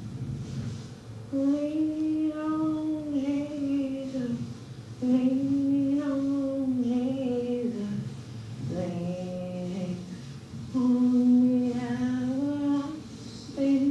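A woman singing slowly on her own, holding long notes in phrases of two to three seconds with short breaks between them.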